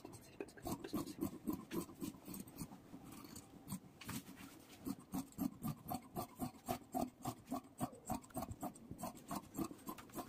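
Large tailor's shears cutting through velvet suit fabric in a steady run of quick, rasping snips, about three a second.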